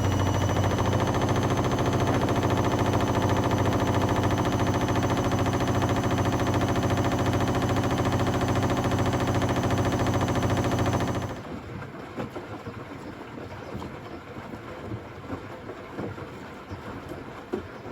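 Zanussi ZWF12070W washing machine running a spin: a loud, steady motor hum and drum rumble with a faint high whine, which cuts off suddenly about eleven seconds in, leaving a quieter, uneven rumble.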